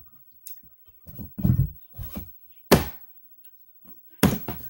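A series of short, dull knocks: about five separate thuds, with sharper ones nearly three seconds in and near the end.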